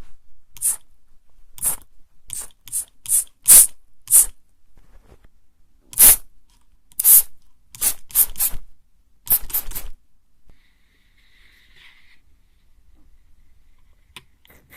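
Mist spray bottle spritzing close to the ear, a series of about a dozen short hissing sprays, some singly and some in quick runs. The spraying stops about ten seconds in.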